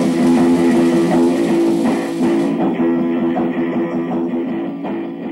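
Instrumental background music with sustained notes. About halfway through it turns duller, losing its top end, and it slowly fades.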